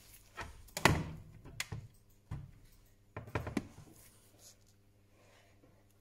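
A few short knocks and thuds, the loudest about a second in, as smartphones are handled and set down on a silicone repair mat. It is quiet after about four seconds.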